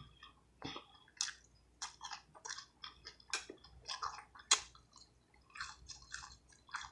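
Close-up chewing of fried seafood, with irregular short crisp clicks and wet mouth smacks, two or three a second.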